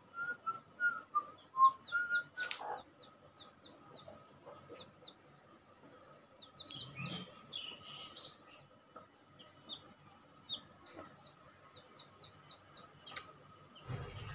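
Newly hatched chicks peeping: short, high, repeated cheeps coming in little runs, with a few lower calls in the first two seconds.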